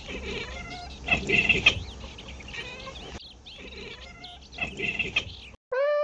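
A domestic cat making high, wavering chirping cries in two bouts, about a second in and again near the end, over a low steady background hum. The clip cuts off and a short steady tone follows.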